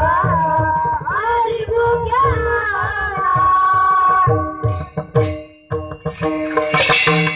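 A boy singing a Marathi devotional song, his held sung line over pakhawaj drum strokes. The voice ends about four seconds in, and the drum goes on; near the end small hand cymbals come in, jingling loudly.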